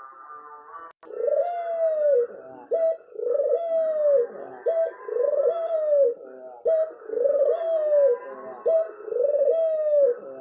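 Spotted dove (tekukur) cooing over and over, each phrase a short note followed by a longer coo that rises and falls, repeated about every one and a half seconds. Small birds chirp faintly behind it.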